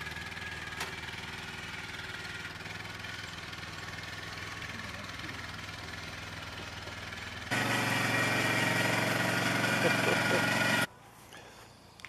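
An engine idling steadily, then running noticeably louder for about three seconds before cutting off suddenly.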